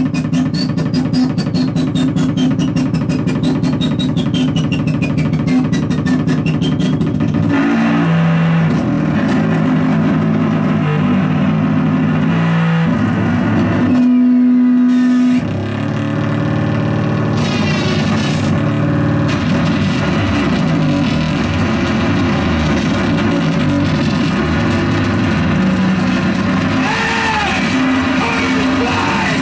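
Live experimental electronic music from synthesizers and effects pedals: loud, droning low tones with a fast, regular clicking pulse and falling pitch sweeps over the first part, and a single steady held tone about halfway through.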